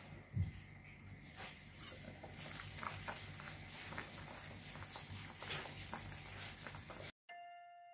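Semur stew of tofu and carrots in sweet soy broth simmering in an open pot on a gas stove: a steady hiss with many small bubbling pops. A low knock about half a second in, as the pot lid is lifted off.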